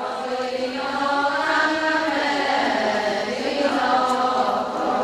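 A group of voices chanting a traditional Adi ponung song together, holding long, slowly bending notes.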